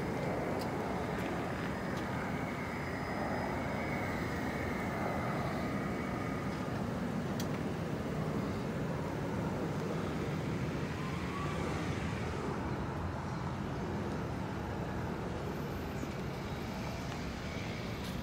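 Steady road traffic noise: a low rumble of passing cars.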